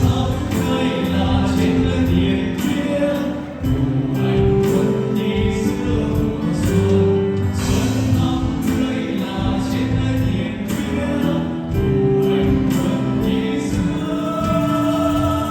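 A group of voices singing a song in chorus over instrumental backing with a steady beat.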